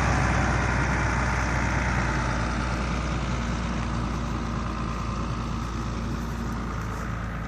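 Large diesel engine running steadily at a constant speed, growing slowly fainter.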